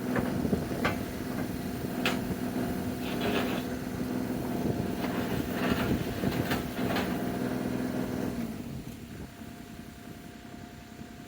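Bobcat mini excavator's diesel engine running steadily under load, with several sharp knocks during the first seven seconds or so. About eight and a half seconds in, the engine drops to a quieter idle.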